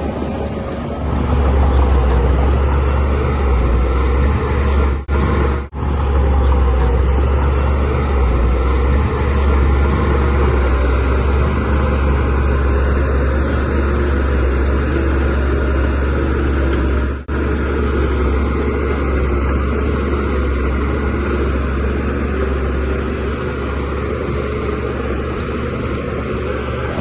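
Shantui DH17C3 bulldozer's diesel engine running steadily under load, with a strong deep rumble. The sound cuts out for a moment three times.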